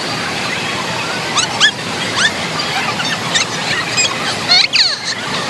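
Indoor pool din: a steady wash of splashing water and crowd noise, with several short high-pitched squeals gliding up and down, the loudest about a second and a half in and near the end.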